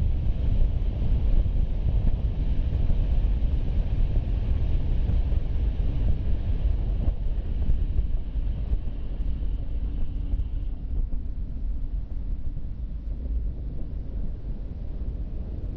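Driving noise of a car picked up by a dashcam: a steady low rumble of road and engine with wind buffeting the microphone. A faint higher hiss drops away about eleven seconds in, and the rumble grows a little quieter toward the end.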